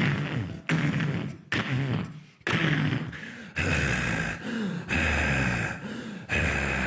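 Vocal sound effects made with the mouth: a run of sharp thud-like hits about every 0.8 s, then longer sustained noises from about halfway through.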